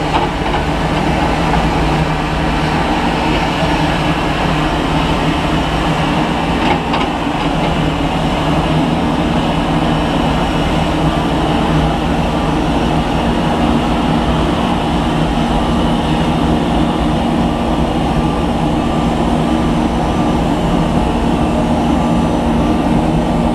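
Airliner jet engines running steadily, a constant rushing sound with a few steady hums through it.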